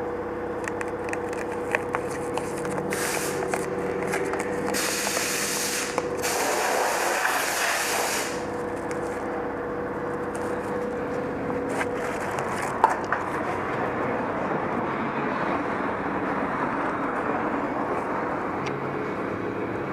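Car detailing work on a painted side mirror: a steady outdoor hum with a constant low tone, small handling clicks and rubbing. About five seconds in come two bursts of spray hiss lasting about three seconds in all.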